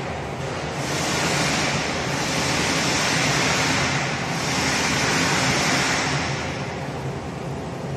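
Label rewinder machine running, its printed label film rolls on the shafts: a steady motor hum under a rushing hiss that swells twice.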